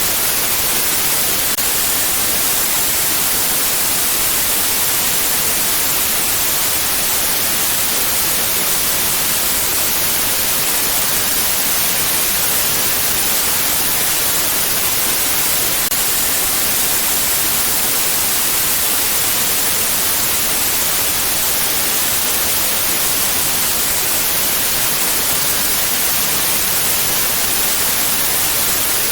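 Steady white noise, an even hiss strongest in the treble, with no change in level.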